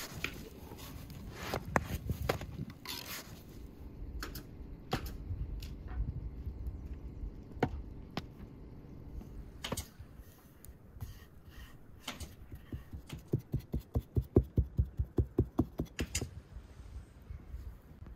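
A wooden rolling pin knocking and rolling on a wooden board as thin flatbread dough is rolled out, with scattered sharp knocks and clicks. About two thirds of the way in comes a quick regular run of soft thumps, about five a second, for a few seconds.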